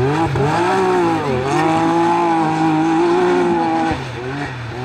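Side-by-side UTV race car engine revving hard, its pitch jumping up and down and then held at high revs for about two seconds as it drives over dirt, before dropping near the end.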